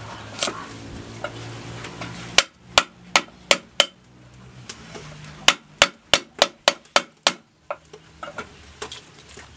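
Kitchen knife chopping on a thick round wooden chopping block: a run of five sharp knocks about three a second, a short pause, then a faster run of about seven, with a few lighter taps near the end.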